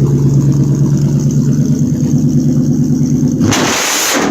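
Car engine with a loud exhaust idling with a lumpy, pulsing note, then about three and a half seconds in a sudden harsh blast of noise cuts in as it is given throttle.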